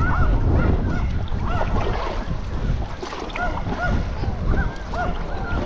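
Wind buffeting the microphone, loudest in the first couple of seconds, with birds calling in short repeated chirps, a few each second, throughout.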